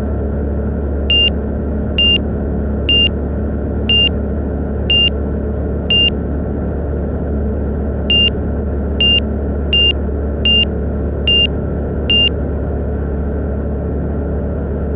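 Rotax 912 iS engine of a Van's RV-12iS droning steadily at climb power just after takeoff. Over it a short high beep pulses about once a second, six times, pauses, then six more slightly quicker: the angle-of-attack warning tone, sounding as the plane climbs at a high angle of attack.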